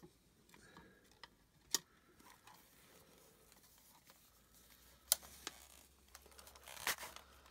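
A few sharp clicks with light handling noise between them, from a collapsible Etekcity LED camping lantern and its wire bail handle being handled.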